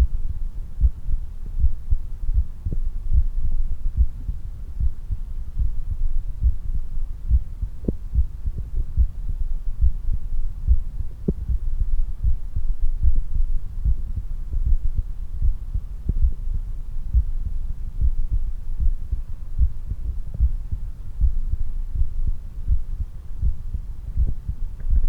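Human heartbeat after exercise: a steady run of repeated low thumps.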